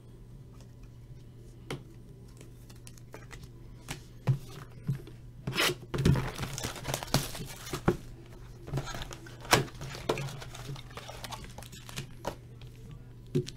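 The wrapping on a cardboard trading-card hobby box is torn and crinkled and the box lid is pried open. It starts about five seconds in as a busy run of sharp crackles, tears and cardboard clicks. A low steady hum sits underneath.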